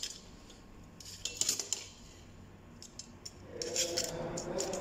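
A screwdriver clicking and scraping against an exit sign's aluminium channel and plastic retaining clips as the clips are pried open to free the circuit board: a few sharp clicks, then a longer scrape near the end.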